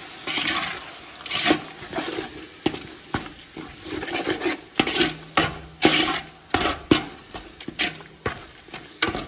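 Metal ladle stirring and scraping a thick frying onion-tomato-spice masala around a large aluminium pot, an irregular run of scrapes and sharp knocks against the pot about once or twice a second. The masala is being stirred until the raw smell of the spice powders cooks off.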